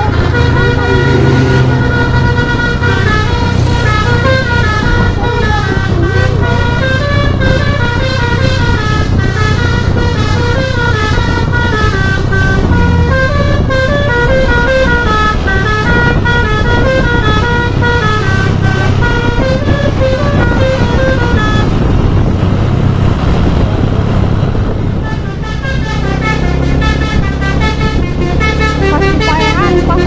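Telolet Basuri multi-tone musical bus horn playing a quick stepping tune over the bus engine's steady running. The tune breaks off for a few seconds about three-quarters of the way through, and horn tones sound again near the end.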